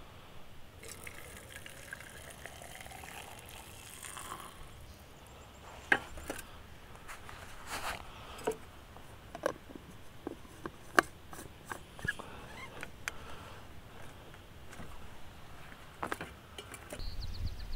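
Water poured into a stainless steel food thermos for about four seconds, its pitch rising as the jar fills. Then come scattered clicks and light knocks of camp cookware and the thermos being handled.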